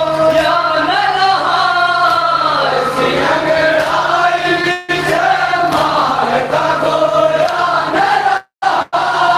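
A group of men chanting a nauha, a Shia mourning lament, together through a microphone and loudspeakers, over a steady low hum. The sound cuts out briefly about five seconds in and twice near the end.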